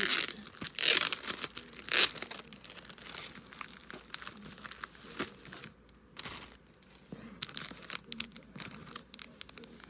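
Clear plastic packaging crinkling and tearing as hands pull it open, with the loudest crackles at the start and about one and two seconds in, then lighter rustling.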